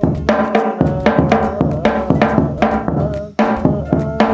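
Hadroh bass habsyi (40 cm drum with a black Powerbeat synthetic head) struck with a mallet together with a hand-played tung, in a quick steady rhythm of sharp strokes with deep bass thumps and ringing tones. This is the set's standard tuning, played unamplified.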